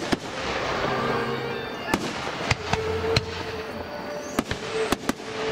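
Aerial fireworks shells bursting in a rapid series of about seven sharp bangs over a continuous crackle, with music playing underneath.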